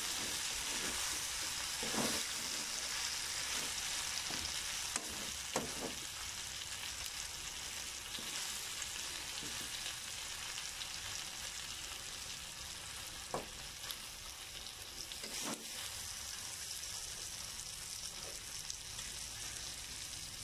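Chunks of meat sizzling steadily in a little oil in a nonstick frying pan, the braising liquid cooked off so the meat is now frying to brown. A spatula stirs the pieces and knocks against the pan a few times.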